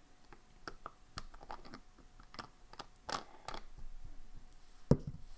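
Hands handling a notebook and small desk items: a scatter of light clicks and taps, then one sharp low thump about five seconds in.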